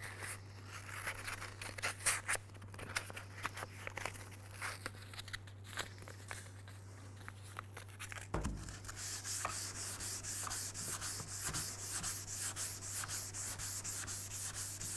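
Wet-sanding paper being handled and fitted into a small hand sanding block, with scattered rustles and taps. From about nine seconds in this becomes a steady rhythm of back-and-forth rubbing strokes as the block sands wet 400-grit paper over the crazed paint of a 1975 Gran Torino's fender.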